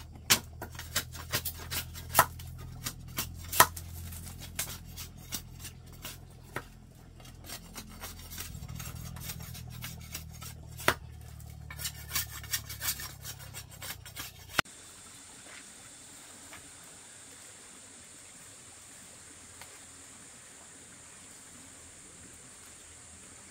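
Irregular sharp clicks and knocks, several a second, over a low hum; they stop abruptly about fifteen seconds in, leaving a steady faint hiss with a high whine.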